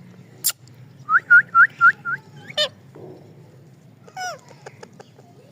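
A parrot calling: a quick run of five short rising chirps about a second in, then a falling squawk, and a few more falling calls near the end.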